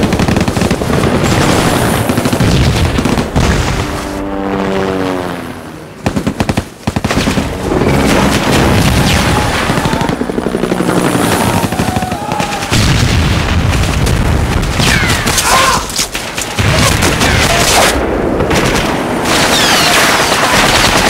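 War-film battle soundtrack: rapid machine-gun fire and heavy booms of explosions, with a short lull about six seconds in.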